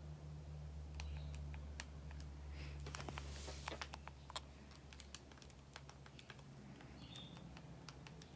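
Buttons on a remote control clicking irregularly as a search is typed in, over a steady low hum, with a brief rustle a little before the middle.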